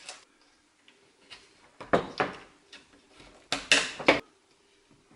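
Plastic retaining clips being pressed onto the plastic frame of a motorhome roof hatch: short, sharp plastic clicks and knocks, a cluster about two seconds in and a louder one around three and a half to four seconds.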